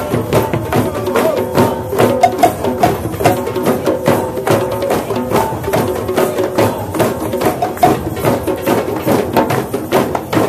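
A drum circle of many hand drums and percussion instruments playing together in a dense, steady group rhythm.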